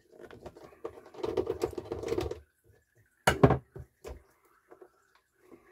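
Hands working at a turntable's center spindle and its bearing housing: a quick run of small clicks and rattles of metal parts. Then comes one loud, sharp knock a little over three seconds in, followed by a few faint ticks.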